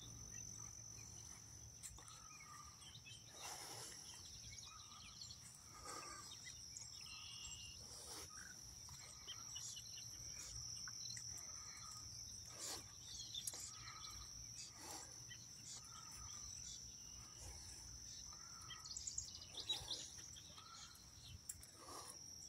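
Faint summer outdoor ambience: a steady high insect drone under short bird calls about once a second, with a few soft footsteps.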